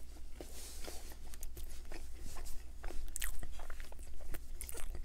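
A person chewing a mouthful of dinner roll, picked up close, with many small irregular mouth clicks.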